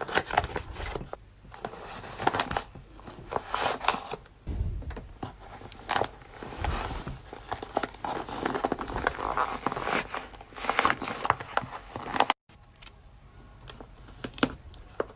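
Paper crinkling and rustling as it is handled, in dense irregular bursts with small crackles, cutting off abruptly about twelve seconds in.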